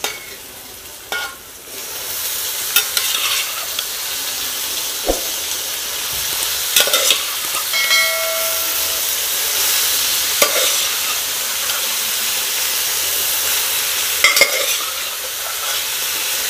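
Boiled mutton pieces frying in hot oil in a steel kadai with onions. A loud, steady sizzle starts about two seconds in, with sharp clinks and scrapes of the steel ladle against the pan and cooker as the meat is added and stirred.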